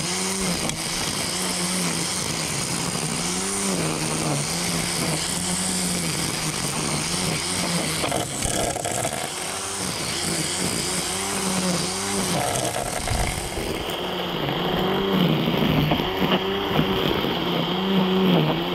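DeWalt DCST922B 20V cordless string trimmer running on its high speed setting: a steady electric motor whine with a hiss of spinning line. Its pitch sags and climbs back every couple of seconds as the line loads up cutting weeds.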